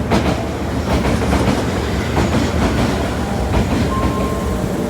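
Osaka Metro train running along the platform, its wheels clacking unevenly over the rail joints over a continuous rumble, with a brief steady tone about four seconds in.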